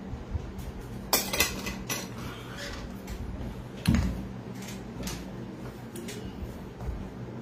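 Handling of a drink bottle and the phone: a cluster of sharp clicks and clatter about a second in, then a dull thump about four seconds in.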